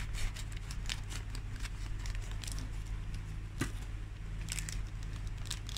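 Thin clear plastic bag crinkling and crackling in irregular short ticks as a Beyblade spinning top is unwrapped from it.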